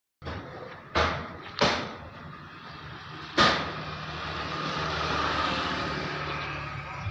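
Tractor diesel engine idling steadily, with three sharp knocks in the first half and a hiss that swells in the middle.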